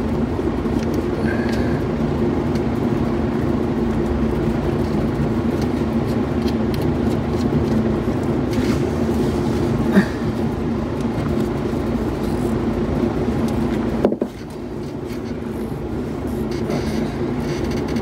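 Steady low machine hum, with a short knock about ten seconds in and a sudden drop in level about fourteen seconds in before the hum builds back up.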